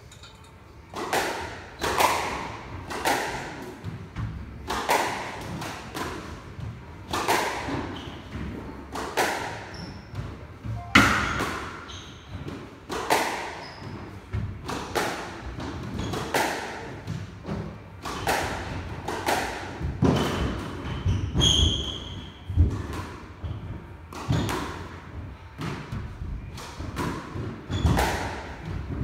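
Squash rally: the ball is struck by the rackets and hits the walls in a run of sharp, echoing thuds, roughly one to two a second. There is a brief high squeak about two-thirds of the way through.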